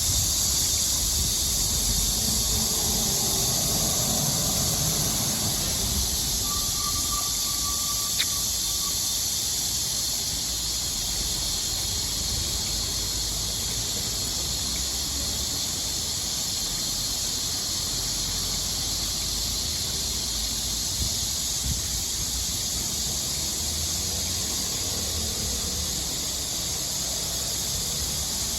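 A city stream's flowing water, a steady bright hiss with a low rumble beneath. A brief faint tone and a small click come about eight seconds in.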